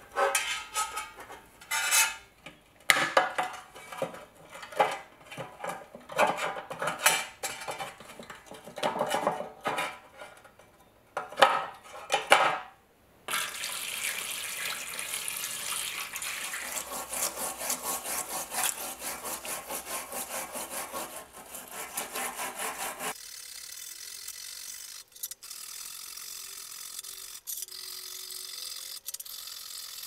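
A metal pick scraping crusted rust off a badly rusted pocket knife in a stainless steel tray, in irregular short strokes. About halfway in, tap water starts running onto the knife in the tray with a steady rush. Near the end it gives way to a softer sound of a small bristle brush scrubbing in the liquid-filled tray.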